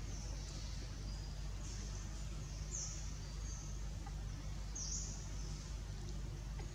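Forest ambience: a steady low background hum under high-pitched buzzy chirping calls that come and go, two of them sliding down in pitch about three and five seconds in.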